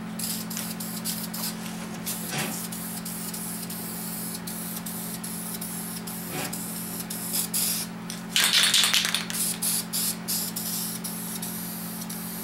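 Aerosol spray-paint can spraying in short hissing bursts, the loudest and longest about eight seconds in. A steady low hum runs underneath.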